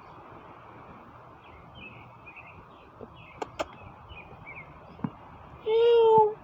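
A single loud, drawn-out meow near the end, over birds chirping in the background. Two sharp clicks come about halfway through.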